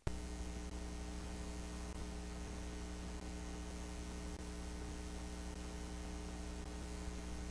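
Steady electrical mains hum with a layer of hiss, unchanging throughout: the recording's own background noise on a blank stretch before the footage begins.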